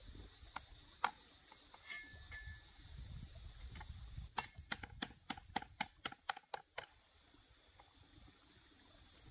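Cleaver chopping lemongrass on a wooden chopping board: a few scattered knocks, then a quick run of about ten chops, roughly four a second, that stops near the end.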